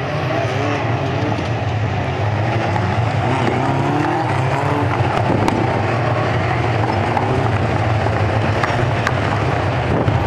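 A pack of GT race cars running through a corner, several engines at once, their pitches rising and falling as the cars accelerate past.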